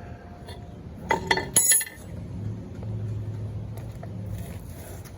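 Metal hand tools and car parts clinking and clanking against each other, with a cluster of sharp ringing metallic strikes a little over a second in.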